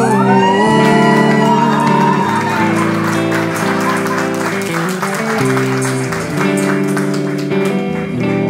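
A song with guitar accompaniment ends on a held sung note, and about a second in, people start applauding and keep on over the continuing guitar music until near the end.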